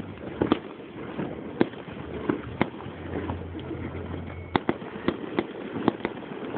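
Fireworks shells bursting overhead: about a dozen sharp bangs at irregular intervals, several coming close together in the second half.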